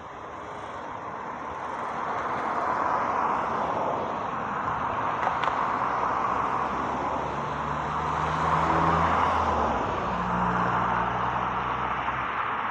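A motor vehicle running close by, swelling up over the first few seconds and then holding steady, with a low engine hum standing out in the second half.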